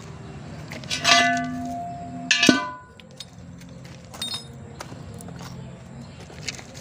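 Two ringing metal clangs about a second and a half apart, each leaving a clear ringing tone for about a second, as steel drive-shaft parts and tools are handled on a steel wheel rim. A few light metallic clicks follow.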